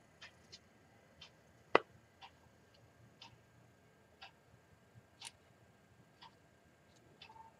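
Clock ticking faintly, about once a second, with one sharper, louder click a little under two seconds in.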